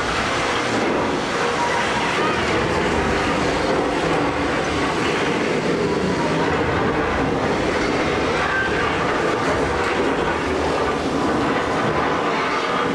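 Earthquake ride's subway-style train running along its track: a steady rolling rail noise.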